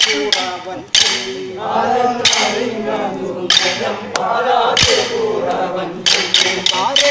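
Kolkali stick dance: short wooden sticks clacked together by the dancers, over men singing the accompanying chant. Through the middle the clacks are sparse, about half a dozen single strikes, then they quicken into a rapid run near the end.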